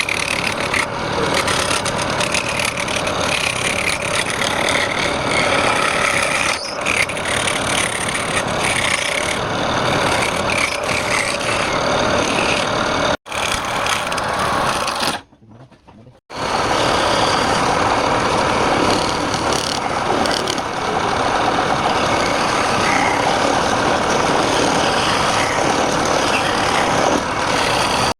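Woodturning lathe running steadily as a tool cuts into the spinning wood. The sound is loud and dense, and cuts out for about a second midway.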